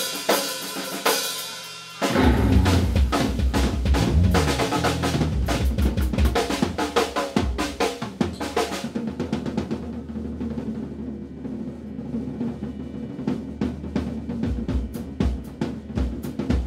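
Live blues band playing with the drum kit to the fore. Rapid snare and cymbal strokes open the passage, and about two seconds in the full band comes in with bass and guitar. Later the sustained parts drop back and the drums carry on over the bass.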